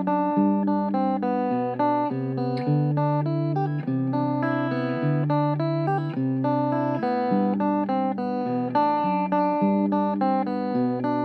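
Background music: a strummed guitar tune with a steady rhythm.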